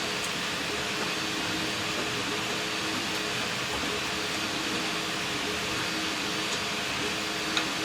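A steady mechanical whirr and hiss with a faint low hum, unchanging throughout, and a small click near the end.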